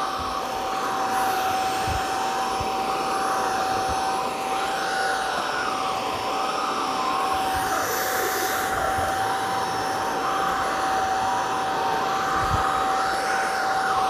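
Eureka Elevate cordless stick vacuum running steadily on stair carpet: a constant high motor whine over rushing suction air that wavers as the floor head is pushed back and forth, with a couple of low knocks.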